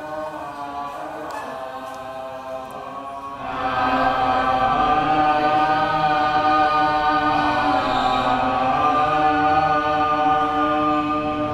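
A group of voices singing together in long held notes, like a choir chanting; it grows louder about three and a half seconds in.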